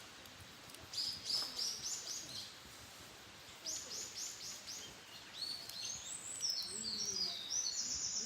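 Wild birds singing: a quick series of about five high, repeated notes about a second in, another such series a little before the middle, then overlapping high song through the last few seconds.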